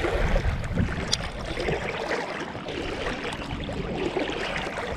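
Steady rush of a swollen, fast-flowing creek, with a low rumble in the first second and a single sharp click about a second in.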